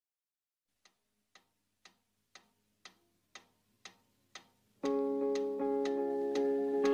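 Song intro. It opens on a ticking like a clock, about two ticks a second and growing louder. Nearly five seconds in, music with held chords comes in over the continuing ticks.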